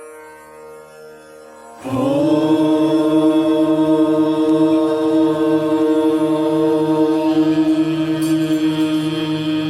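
Soft sustained instrumental music, then about two seconds in a loud chanted drone sets in. It is held steadily on one pitch with a slight waver, like a mantra chant.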